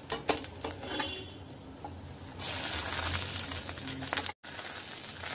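A spatula scrapes and clicks against a non-stick frying pan as an egg chilla is lifted and folded in half. From about halfway, a steady sizzle of the food frying in the pan.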